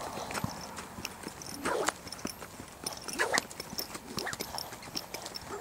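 Quarter Horse colt cantering loose on sandy dirt footing, hoofbeats thudding in the three-beat rhythm of the gait. Two louder, longer rushing sounds stand out, about two seconds in and about three and a half seconds in.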